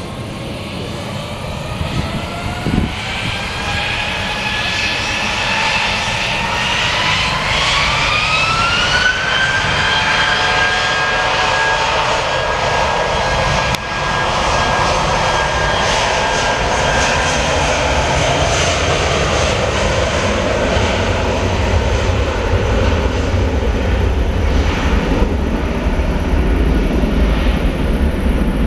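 Airbus A319's two IAE V2500 turbofan engines spooling up to takeoff thrust: a whine rising in pitch for about nine seconds, then holding steady. A deep jet roar builds and takes over as the airliner accelerates past on its takeoff roll.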